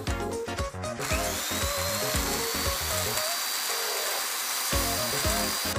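Background music with a beat. About a second in, a high-speed handheld power tool starts up with a rising whine that levels off. It then runs steadily against a small piece of pine wood and stops near the end.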